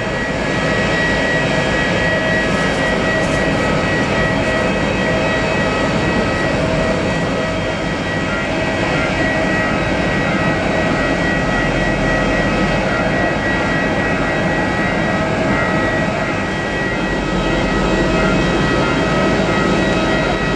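Auxiliary power unit of a parked Airbus A321neo running: a steady jet whine with several high tones over a rushing noise.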